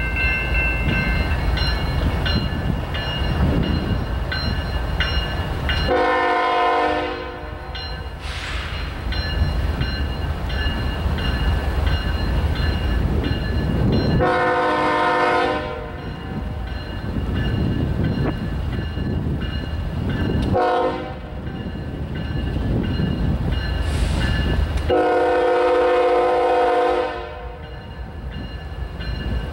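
Air horn of an approaching CSX freight's lead diesel locomotive sounding the grade-crossing pattern: two long blasts, a short one, then a long one. Under it is the steady low rumble of the oncoming locomotives.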